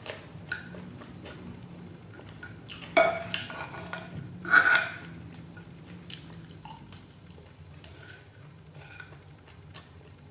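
Wooden chopsticks and a spoon clicking and scraping against a ceramic plate, with two louder ringing clinks about three and four and a half seconds in.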